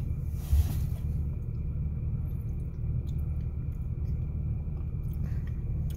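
Steady low rumble inside a car's cabin, with a brief thump about half a second in and a few faint small clicks.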